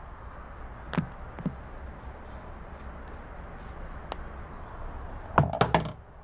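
A few sharp knocks and clicks from washing-machine parts being handled during reassembly, ending in a quick clatter of several knocks, over a steady low background hum.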